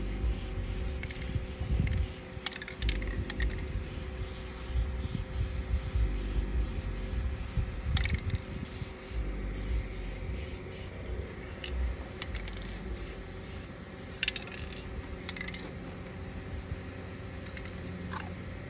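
Aerosol spray-paint can hissing on and off in short bursts as paint is sprayed, with a few sharp clicks over a low, uneven rumble.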